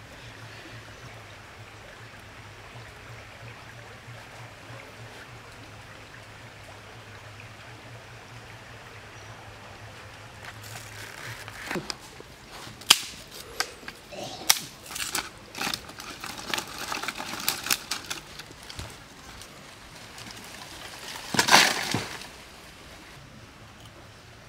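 Dry sticks and twigs handled and broken by hand: a run of sharp cracks and snaps through the middle, then a louder crunching burst about three seconds before the end. Before the snapping begins there is only a faint steady low hum.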